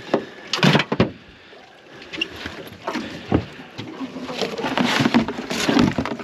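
Handling noise in a small boat: two loud knocks about a second in, as of a hatch lid being dropped shut, then scattered clicks, knocks and rustling as crab pot mesh and a plastic tub of mud crabs are moved about.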